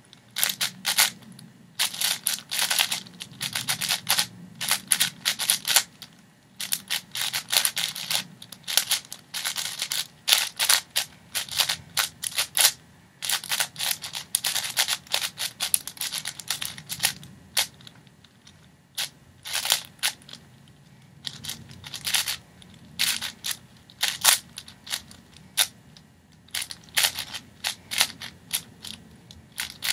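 Plastic clacking of a 6x6 speedcube's layers being turned fast by hand, in quick runs of many clicks broken by brief pauses.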